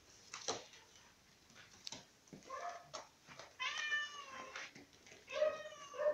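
Domestic cat meowing three times: a short call, then a longer, slightly falling one of about a second, then a third near the end. A few light knocks come before the calls.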